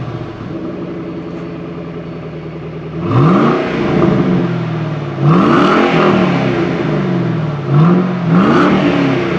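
Ford Mustang GT V8 on its stock exhaust, idling just after start-up, then revved four times: a rev about three seconds in, a longer one about five seconds in, and two quick blips near the end, each falling back to idle.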